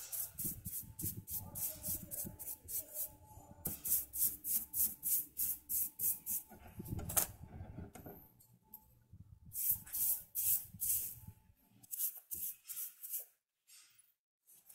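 Bristle brush stroked quickly back and forth over a tire inflator's body, brushing on a dark coating: runs of short scratchy strokes at about four a second, with brief pauses between runs.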